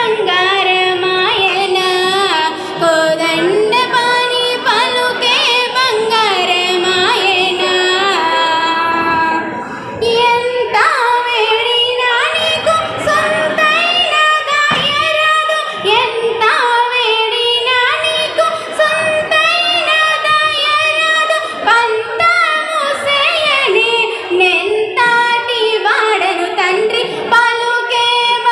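A girl singing a Carnatic-style Telugu song solo into a microphone, in long melodic lines with wavering, ornamented notes and a brief pause about ten seconds in.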